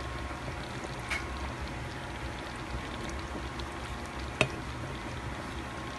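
Cream sauce simmering in a pan, a steady bubbling hiss, as sliced mushrooms are added. Two short clicks, a faint one about a second in and a louder one about four and a half seconds in.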